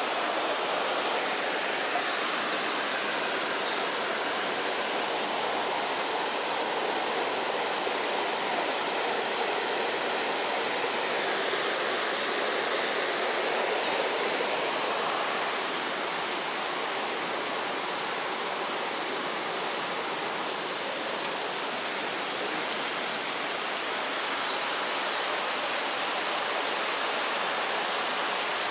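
Mountain river rushing over rocky rapids: a steady, even roar of flowing water, swelling slightly about halfway through.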